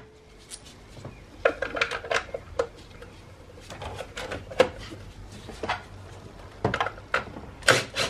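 Scattered clicks and light scrapes of a bolt and hand tool being worked into the plastic engine cover over the ignition modules, with a quick run of short scraping strokes near the end.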